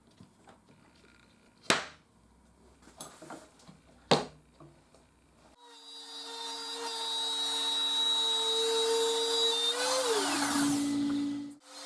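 A few sharp knocks, then an electric power tool starts about halfway through and runs with a steady high whine. Its pitch dips and recovers near the end, and it cuts off just before the end.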